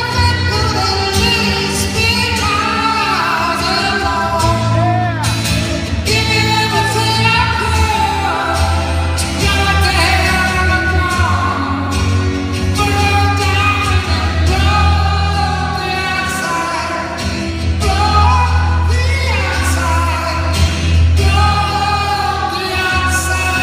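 Live solo singing with acoustic guitar accompaniment: a voice carrying a melody over steadily strummed guitar chords.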